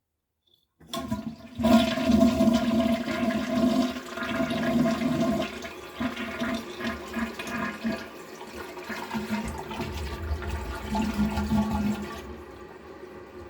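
A toilet flushing: a sudden loud rush and gurgle of water with a faint hum in the pipes. About twelve seconds in, the rush falls away to a quieter, steady running of water.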